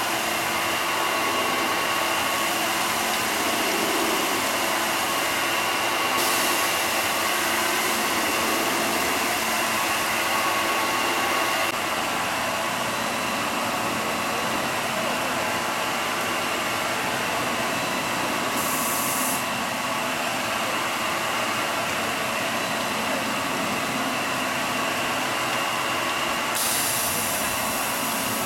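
Multi-head stone polishing machine running: a steady, even mechanical noise from its motors and spinning polishing heads, with a faint steady high whine and stretches of extra hiss that come and go.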